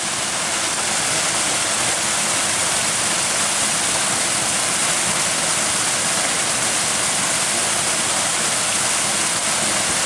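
Steady rushing and splashing of a small waterfall spilling over rocks into a shallow creek.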